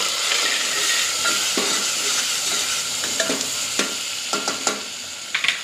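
Freshly added chopped tomatoes sizzling in hot oil with onion in a pressure cooker, with a steady frying hiss that is loudest in the first couple of seconds. A steel ladle stirring them scrapes and knocks against the pot several times.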